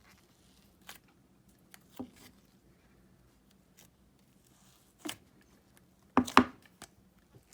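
Clay slime being squished and pressed by hand, giving a few scattered sharp clicks and pops, loudest in a cluster a little past six seconds.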